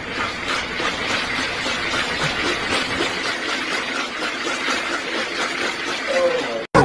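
Steady rolling noise of a ball running round the circular plastic track of a cat ring toy, stopping abruptly near the end.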